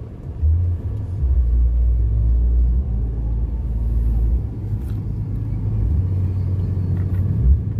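Steady low rumble of a car heard from inside its cabin: engine and road noise.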